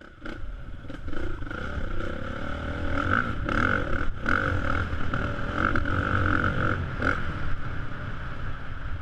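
Motocross dirt bike engines running, their pitch wavering up and down.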